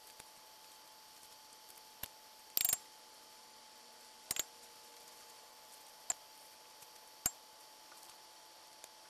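Quiet room tone with a faint steady hum, broken by about six short clicks and crinkles from gloved hands peeling figs and dropping the pieces into a glass blender jar; the loudest is a brief crackle about two and a half seconds in.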